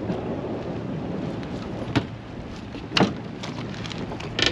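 Steady wind buffeting the microphone on an open boat, with two sharp knocks about two and three seconds in.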